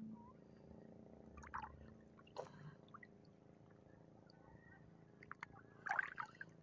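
Faint small splashes and drips of seawater around a hand held at the surface: a few short ones in the first half and a louder little cluster near the end, over a faint steady hum.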